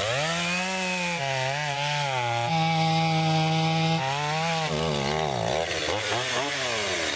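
Stihl two-stroke chainsaw revving up and cutting into a large log. Its pitch rises fast, holds at high revs with a few steps, then dips and surges unevenly from about five seconds in and dies away near the end, which the owner puts down to the saw having run out of fuel.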